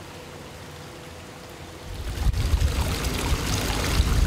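Hot-spring water pouring from a stone spout into a bath, a steady splashing rush. For the first two seconds only a faint, even water hiss is heard, then the pouring comes in much louder.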